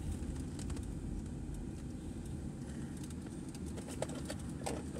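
Steady low rumble of a moving car, heard from inside the cabin, with a few faint clicks and knocks.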